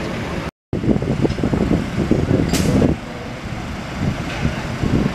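Crane truck's engine running, with a brief break about half a second in and a short hiss about two and a half seconds in.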